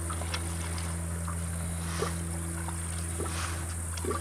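A boat motor running steadily while trolling, a low even hum. A few small sharp clicks of a wire leader and tackle being handled come over it.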